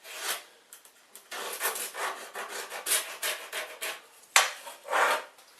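Pencil scratching across a wooden board in short repeated strokes while marking a guide line, with a sharp knock about four seconds in.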